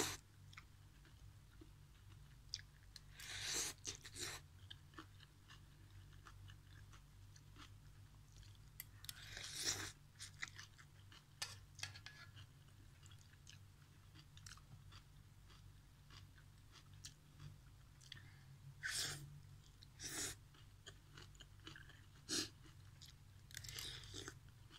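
Close-up eating sounds of instant noodle soup: chewing with several louder slurps of noodles and broth from a spoon, and small clicks of the metal spoon in the aluminium wok, over a steady low hum.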